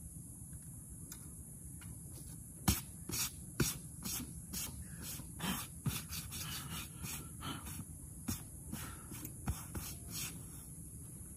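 A run of irregular sharp knocks and scrapes, roughly a dozen over about eight seconds, starting a few seconds in, over a steady high hiss.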